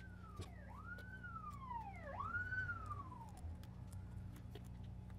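Faint emergency-vehicle siren wailing, its pitch rising and falling roughly once a second, loudest near the middle and fading out after about three and a half seconds, over a steady low hum with a few small clicks.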